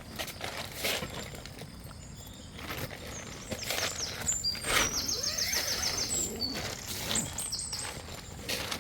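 Small birds chirping, with a quick trill of about ten notes midway through, over outdoor background noise and a few soft knocks and rustles.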